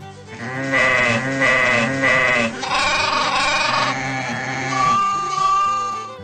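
Sheep bleating, a run of wavering bleats: three short ones, then longer, drawn-out calls.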